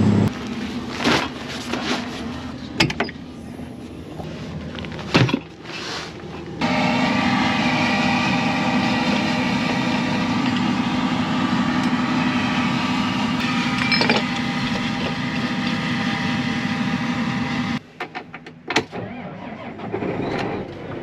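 Vehicle engine running steadily with a humming whine, preceded by a few clicks and knocks; the sound cuts off abruptly near the end.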